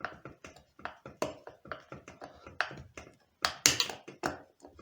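Flat screwdriver blade of a folding knife turning a self-tapping screw: an irregular run of clicks and scrapes, several a second, with one louder rasp a little over three seconds in.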